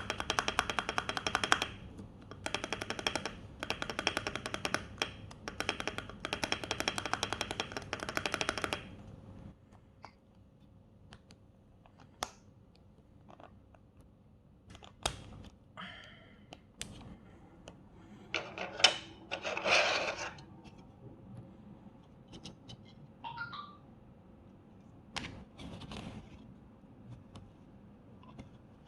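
6.25u spacebar on a mechanical keyboard being pressed: a fast run of keystrokes with a ringing ping for about the first nine seconds, then scattered single clicks and knocks.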